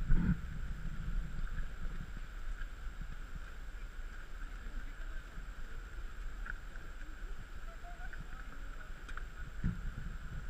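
Steady low, muffled rumble of water and wind on a GoPro's microphone at the edge of a hot-spring pool, with a dull thump just after the start and another near the end.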